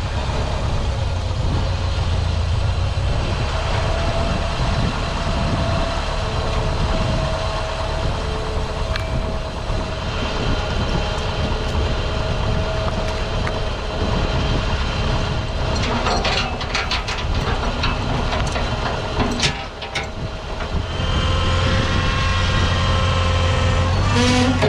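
Ford 8N tractor's four-cylinder engine idling steadily, with a run of metallic clinks about two-thirds through as a chain is fastened around a fence post. The engine note grows louder near the end.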